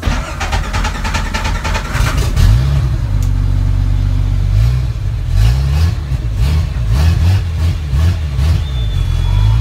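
Turbocharged Chevrolet Omega drift car's engine, heard from inside the stripped cabin, revved in repeated throttle blips, its pitch rising and falling over and over. It comes in suddenly with a crackly rasp for the first couple of seconds and settles to a steady idle near the end.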